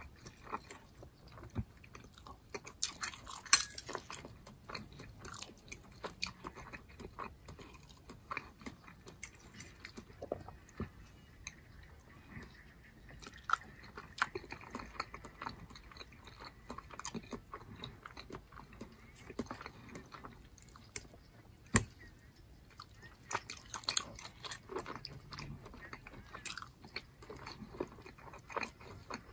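Close-up chewing and wet mouth sounds of a man eating ground turkey with potatoes, chicken with squash and Mexican rice, with occasional sharp clicks of a metal fork against the plate.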